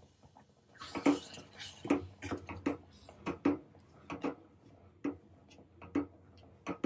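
Wooden spatula stirring roasted rice semolina into hot coconut milk and water in a steel pot, knocking and scraping against the pot at irregular intervals, with a brief rush of pouring and stirring about a second in.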